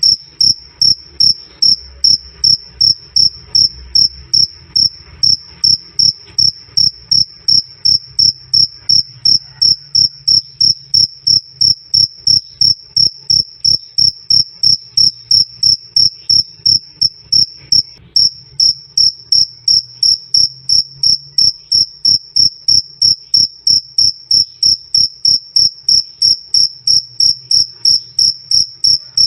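A male cricket chirping loud and clear, a steady run of short high-pitched chirps at about three a second without a break.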